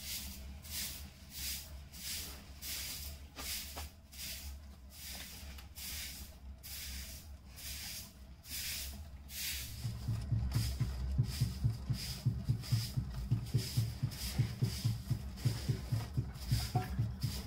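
Potter's wheel spinning while wet clay is thrown on it, with a rhythmic swishing rub about twice a second. About ten seconds in a low, faster thudding joins it and the sound gets louder.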